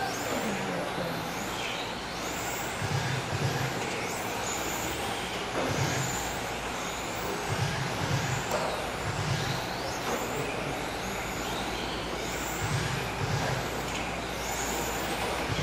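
Several 1/10-scale electric RC touring cars with 17.5-turn brushless motors running laps, their motors whining in short sweeps that rise and fall as the cars accelerate and brake through the corners, several overlapping at once.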